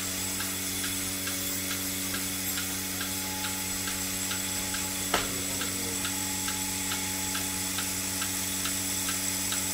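Portable bucket milking machine running on a cow: a steady motor hum with the pulsator clicking about twice a second, and a single knock about halfway through.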